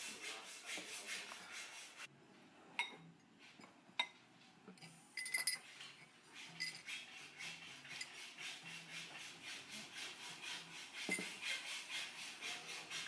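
A spoon stirring coffee in a drinking glass: rapid, even scraping strokes, broken by a few sharp clinks of the spoon against the glass.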